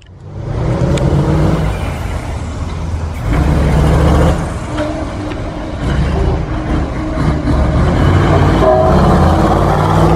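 Dakar-style rally-raid truck's diesel engine running hard as the truck drives along the stage and passes close by, the engine note swelling several times as it accelerates.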